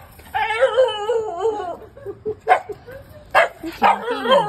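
Shiba Inu's excited greeting: a long, wavering whining howl, then short sharp yips about two and a half and three and a half seconds in, and more wavering whines near the end.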